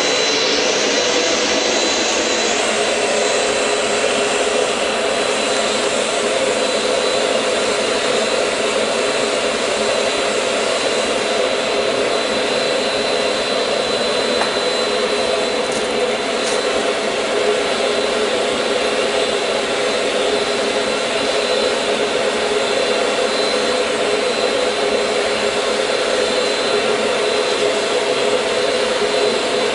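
Electric air blower on a blacksmith's forge running steadily, a constant rushing hum with a faint high whine, blowing air into the fire to keep it hot.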